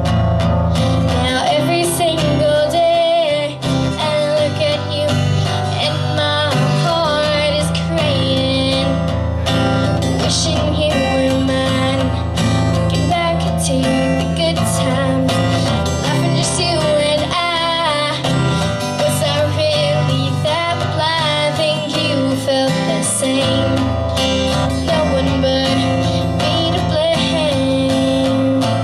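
A female singer performing a song live, accompanied by a strummed acoustic guitar.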